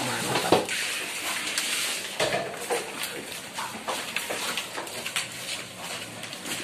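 Light kitchen clatter: scattered small clicks and knocks from hands handling food and plastic food boxes.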